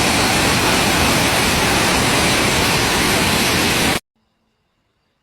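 Steady, loud rushing hiss that covers the whole range from deep to high and cuts off abruptly about four seconds in.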